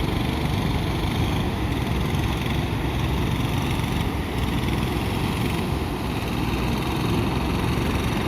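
Ocean surf breaking on a beach: a steady, unbroken rush of waves with a heavy low rumble.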